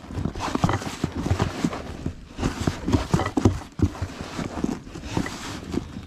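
Hands stirring and kneading damp feeder groundbait mixed with crushed corn in a bucket: an irregular run of dull thuds and rustles, several a second.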